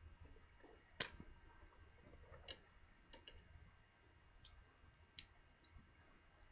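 Near silence broken by a handful of faint clicks and taps, the sharpest about a second in.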